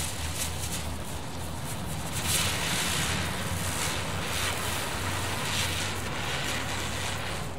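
Klasek Rotacek ground spinner firework flaring up, then hissing steadily as it spins and throws sparks. The hiss grows stronger about two seconds in and dies out near the end as the spinner burns out.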